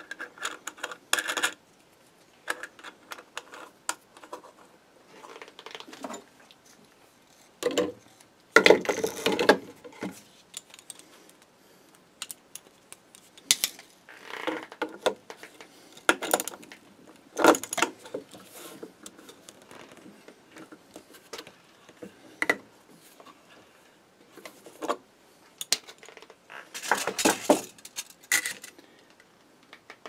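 Steel wrench and socket clinking against hex nuts on a threaded steel bolt, in scattered bursts of clicks and rattles, as two nuts are run down and tightened against each other.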